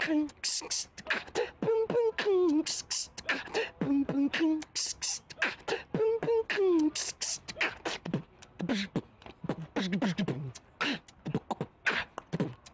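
Beatboxing: rapid mouth-made hi-hat and snare hisses and clicks, woven with short hummed vocal notes that hold and then slide downward.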